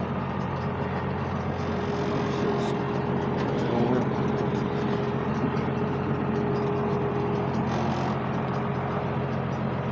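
Tractor engine running at a steady speed, a constant drone with a steady hum over it.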